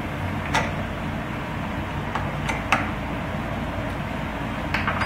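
A few light, sharp clicks of a hand tool working the X-Carve's belt tensioner as it is tightened about half a turn, over a steady low hum.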